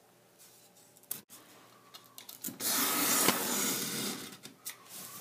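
Utility knife blade drawn along a steel ruler, slicing all the way through a sheet of foam board in one long cut lasting about a second and a half, starting about halfway through. A short sharp click comes a second or so before it.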